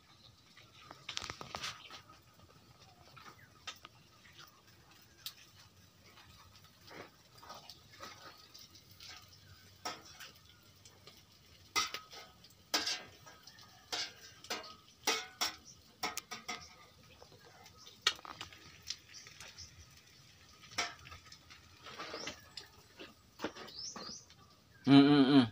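Puppies and small dogs scrabbling and eating around a concrete floor: scattered light taps, clicks and scuffles, with a few short high squeaks near the end.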